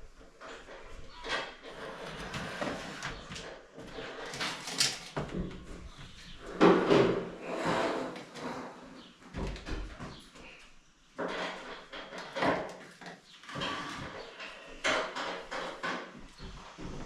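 Irregular clunks, knocks and scrapes of hands handling and fitting parts, with the loudest burst of scraping about halfway through.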